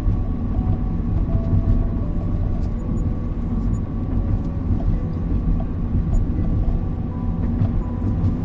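Steady low rumble of a car driving along, engine and road noise together. A faint, soft melody of held notes plays over it.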